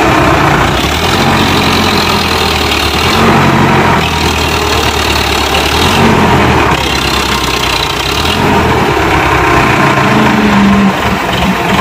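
Sonalika tractor's diesel engine running hard, the revs rising and falling several times as it labours to pull the tractor out of deep mud.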